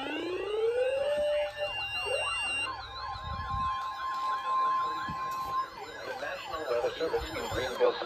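Several sirens sounding at once: slow wailing sweeps overlap a fast yelp of about three warbles a second, with a steady tone held for a few seconds in the middle.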